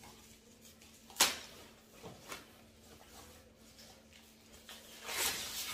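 Packed speaker and its wrapping being handled: a sharp knock about a second in, two lighter taps soon after, and a longer rustle near the end.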